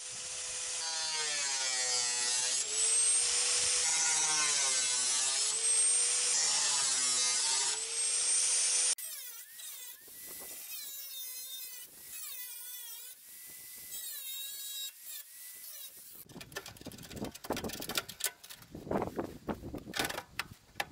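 Angle grinder cutting the steel body of a ZAZ-968 around the tail-light opening. The motor whine dips in pitch and recovers again and again as the disc bites. About nine seconds in, it cuts abruptly to quieter grinding with a higher whine. From about two-thirds of the way through there are only irregular clicks and knocks of handling parts.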